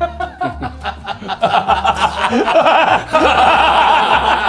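Men laughing loudly together, swelling about three seconds in, over background music with a regular low beat.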